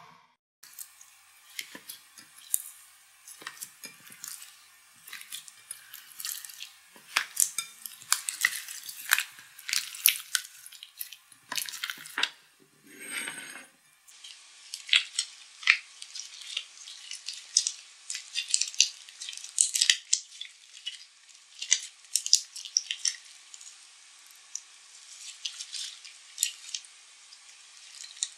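Pink slime being worked in a bowl and then squeezed and stretched by hand, giving a steady run of small wet clicks and pops.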